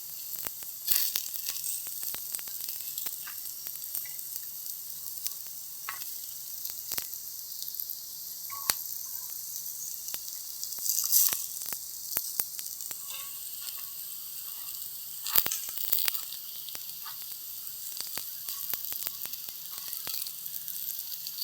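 Vegetable and paneer tikkis shallow-frying in hot oil in a pan: a steady sizzle with scattered crackles and pops, a few of them louder.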